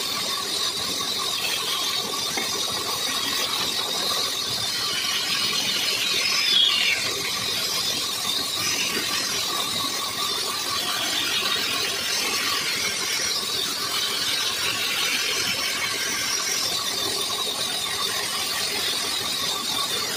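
Band saw running steadily while a wooden block is fed through its blade, a constant whine with a hiss of the blade cutting the wood. It grows briefly louder about six and a half seconds in.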